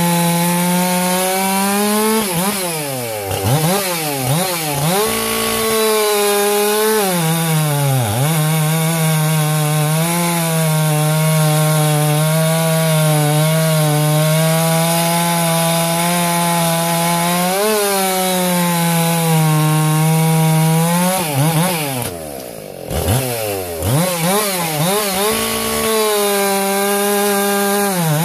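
Ported Husqvarna 576 XP two-stroke chainsaw with a dual-port muffler and a rev-limited ignition coil, running at full throttle while cutting discs off a log with a 28-inch bar. The engine pitch holds high and steady through each cut, then dips and climbs back several times as the throttle is eased between cuts, dropping lowest about three-quarters of the way through.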